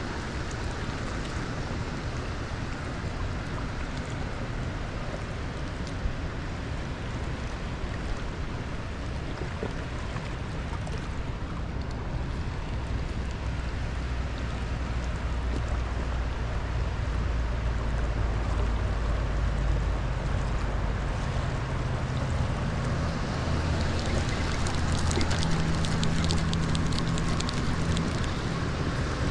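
Steady rushing of water released through a dam's spillway gates, churning below the dam. A low droning rumble builds in under it from about halfway through.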